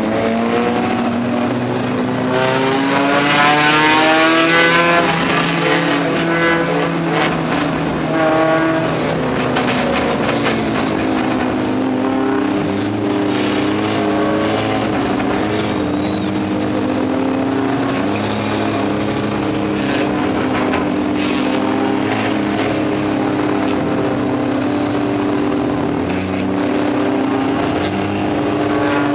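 Race car engine heard from inside the car's cockpit, running hard during a race. Its pitch rises and falls over the first ten seconds or so, then holds a steady high-revving note, with a couple of sharp clicks about two-thirds of the way through.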